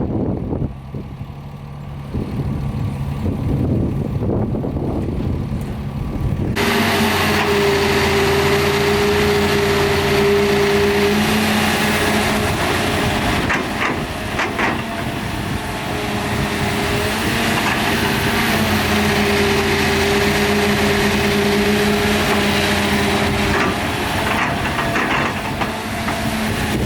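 Heavy diesel earthmoving machinery running, most likely the Doosan DX300LC-3 excavator working. A few seconds in, the sound jumps abruptly to a louder, brighter running with a steady whine that fades in and out.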